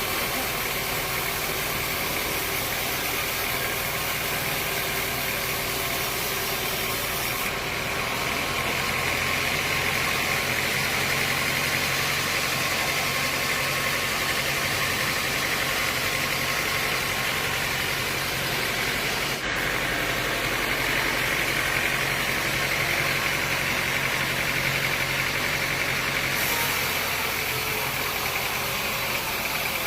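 Sawmill machinery running steadily: a constant mechanical noise with a high whine. It gets a little louder and brighter from about a quarter of the way in until near the end, with a momentary dropout about two-thirds of the way through.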